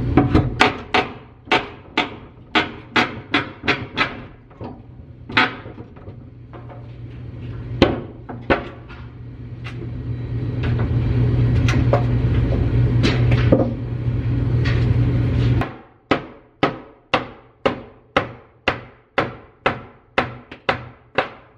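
Hammer blows struck in a fast steady rhythm, about two to three a second, with a few scattered knocks and a loud steady low hum in the middle that cuts off suddenly about two-thirds of the way through, after which the steady hammering goes on.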